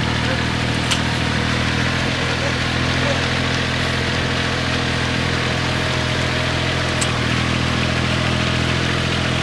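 Engine of an old Yanmar 10-row riding rice transplanter running steadily while it plants, with two short sharp ticks, about a second in and about seven seconds in.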